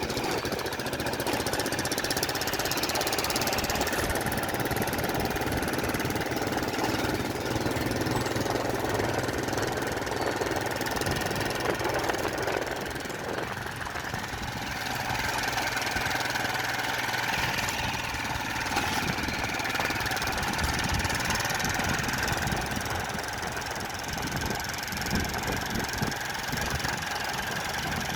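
A motor engine running steadily, with a slight change in its sound about halfway through.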